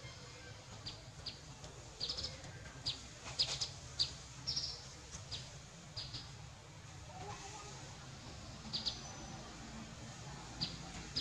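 A bird chirping in short, sharp, high notes, often in quick pairs, repeating irregularly and most often in the first half, over a steady low rumble.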